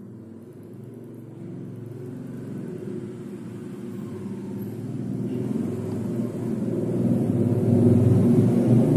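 A low rumble that grows steadily louder, peaking near the end.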